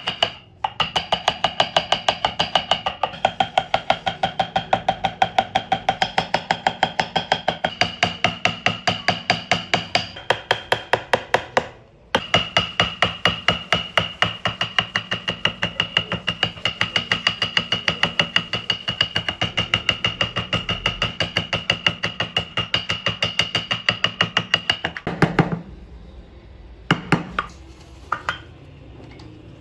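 A small steel carving chisel tapped rapidly and evenly into hardwood, about three strikes a second, each strike with a metallic ring. Near the end the tapping stops, leaving only quieter scraping of a hand gouge paring wood.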